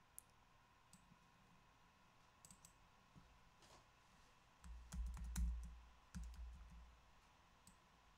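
Faint computer mouse clicks now and then, with a low rumble and a quick run of clicks from about five to seven seconds in, the loudest part, as the mouse is worked.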